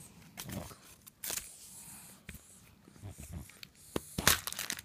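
Yellow plastic toy capsule from a chocolate surprise egg being handled and pried at, giving a series of small knocks and clicks, with a sharp louder click near the end as the two halves snap apart.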